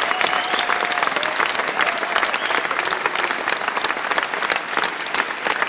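Large audience applauding: dense, steady clapping, with a few faint voices calling out over it.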